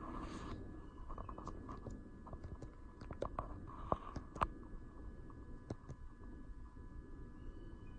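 Scattered faint clicks and handling noise over a low rumble and a steady faint high whine.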